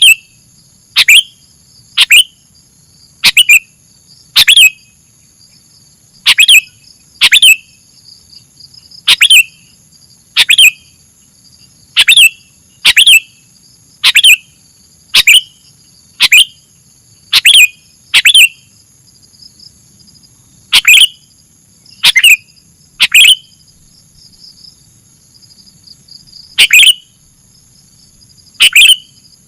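Sooty-headed bulbul (kutilang) giving a short, sharp call over and over, about once a second, with a few longer pauses.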